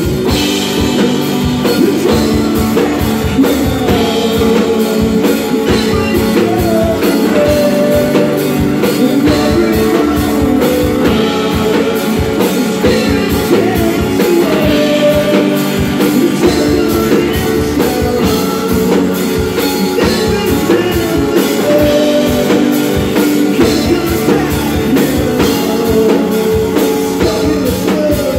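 Live rock band playing: amplified electric guitar, electric bass and drum kit, with a man singing over them.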